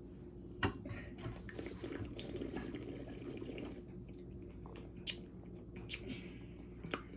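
A person taking a drink of carbonated soda: a sharp click, then about two and a half seconds of gulping and swallowing, then a few short mouth clicks.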